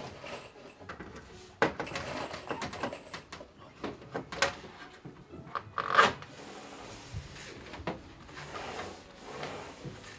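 Wood being knocked and rubbed during carpentry work: a few sharp knocks, the loudest about six seconds in, amid quieter scraping and handling.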